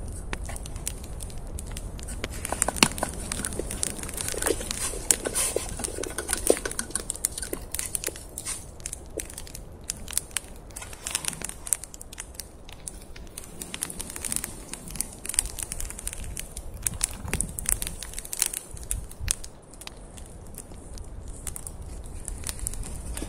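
Wood campfire crackling, with many irregular sharp pops.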